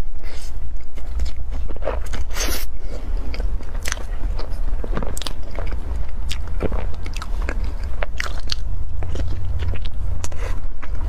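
Close-miked biting and chewing of a soft cream-filled bun with a shredded meat-floss coating: squishy, wet mouth sounds and many small crackles from the floss, with a louder burst of noise about two and a half seconds in. A steady low rumble runs underneath.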